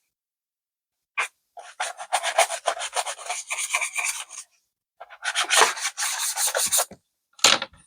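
Quick, rapidly repeated rubbing and scraping strokes against the laptop's casing while it is cleaned of dust, in two long bursts of a couple of seconds each with a sharper short stroke near the end.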